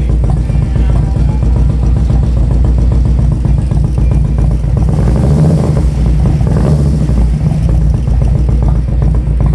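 Harley-Davidson Twin Cam 96 V-twin running through a Sharkroad aftermarket exhaust: a steady idle that is revved up briefly a couple of times around the middle, then settles back to idle.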